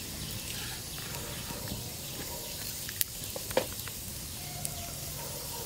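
Small wood fire burning under a green bamboo tube of roasting frog meat: a steady hiss with a few sharp crackles and pops a little past the middle.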